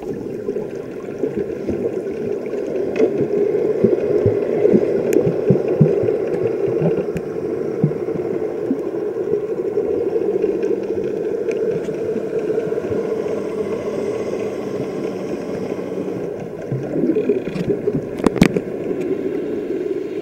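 Muffled underwater noise picked up by an action camera in its waterproof housing: a steady low hum with scattered small clicks. A faint steady drone runs through the middle, and a sharper knock comes near the end.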